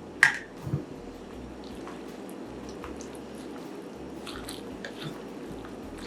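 Kitchen handling of a wet chicken-and-egg pie filling in a bowl: a sharp clink just after the start and a lighter knock soon after, then soft wet squishing with faint scattered clicks.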